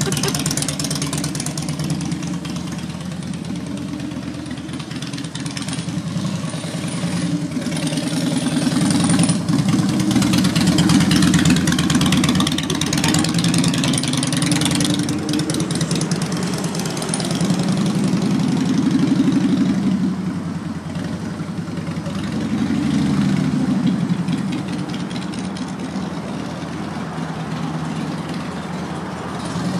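Harley-Davidson motorcycle engine running while the bike is ridden, a steady low drone that swells and eases as the throttle and speed change.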